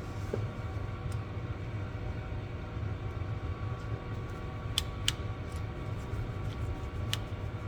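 Steady low background hum, with a few small sharp metallic clicks from the small parts of a ratchet being handled as its back screws are fitted: two close together about five seconds in and one more near the end.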